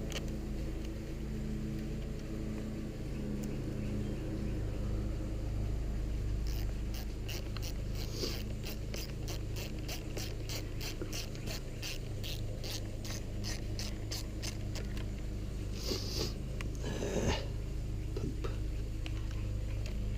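Ratchet wrench clicking in short runs, about two to three clicks a second, as the battery terminal bolts are worked, over a steady low hum.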